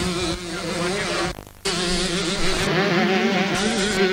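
125 cc two-stroke motocross bikes buzzing around the track, engine pitch wavering up and down as the riders work the throttle. The sound briefly cuts out about a second and a half in.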